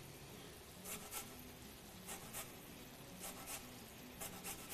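A lemon being grated on a stainless steel box grater for zest: faint, quick scraping strokes, mostly in pairs about a second apart.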